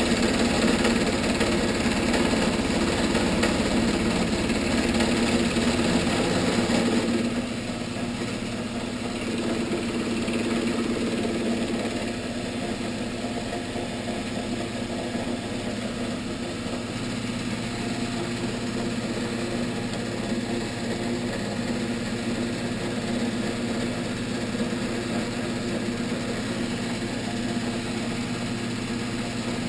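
Vertical milling machine running steadily with a large circular cutter on a steel block. It is louder for the first seven seconds or so, then drops to a quieter, even run.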